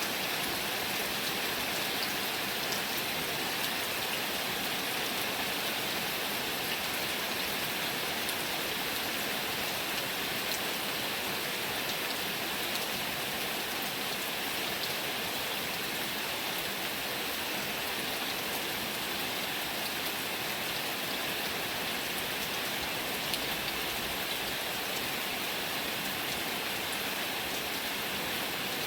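Heavy rain falling steadily, an even hiss with scattered drop ticks that does not let up.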